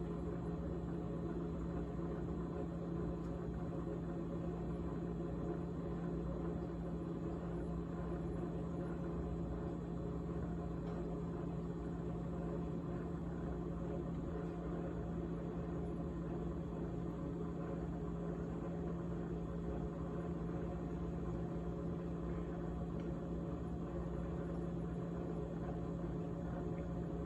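GE GTH18XCTZRBB top-freezer refrigerator running with a steady hum and a continuous rattle.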